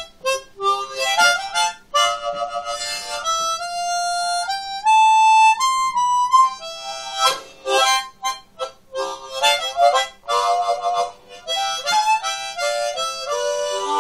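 Harmonica playing an instrumental break: runs of quick notes, with a few longer held notes stepping upward in pitch in the middle.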